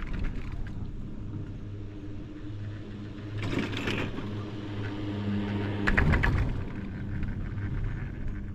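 Detachable high-speed chairlift ride: a steady low mechanical hum, broken twice, about three and a half and six seconds in, by a short rattling clatter as the chair runs over a tower's sheaves.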